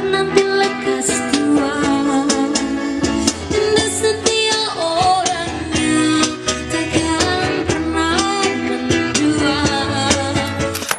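A woman singing a song with a band, with acoustic guitar strummed throughout.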